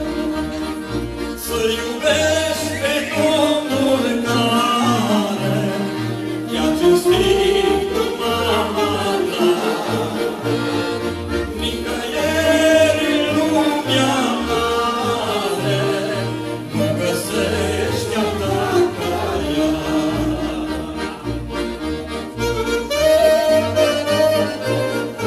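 Accordion-led performance of a slow Romanian Christian song: accordion chords with a bass line under a wavering lead melody, all at a steady, full level.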